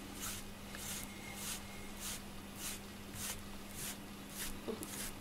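FURminator deshedding tool raked through a cat's coat in steady repeated strokes, a soft rasp about three times every two seconds, pulling out loose undercoat.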